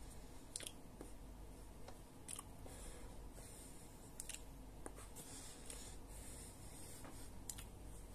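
Faint room tone with a low steady hum and scattered small clicks and rustles at irregular moments.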